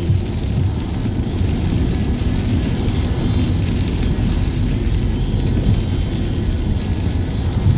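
Steady low rumble of a car driving along a rain-soaked road, engine and tyre noise with a faint hiss of water above it.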